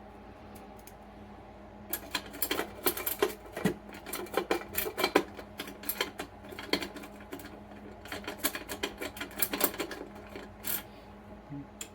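A lock-pick rake scraping rapidly in and out of a small book safe's pin-tumbler lock: a fast run of clicks and rasps that starts about two seconds in, pauses briefly near the middle, and stops about ten seconds in.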